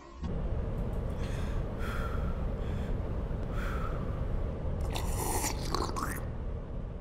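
A steady low rumbling background with a few faint, short breathy sounds over it.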